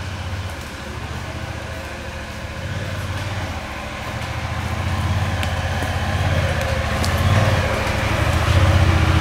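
Honda Pioneer 1000 side-by-side's liquid-cooled 1000cc twin-cylinder engine running as the machine drives toward the microphone, growing steadily louder as it comes close.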